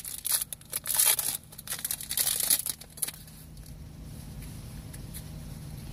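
Silver foil trading-card pack wrapper being torn open and crinkled in rapid crackling bursts, which die down after about three seconds as the cards are drawn out of the pack.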